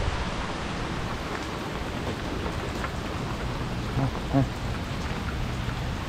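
Steady heavy typhoon rain falling: a constant, even hiss.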